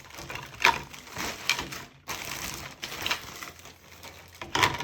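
Hard plastic dishwasher arm parts being handled and fitted: about five sharp, separate clicks and knocks.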